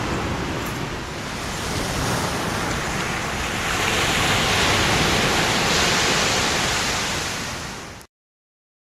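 Rushing noise of surf on the shore, with wind buffeting the microphone. It swells from about three and a half seconds in and cuts off abruptly about eight seconds in.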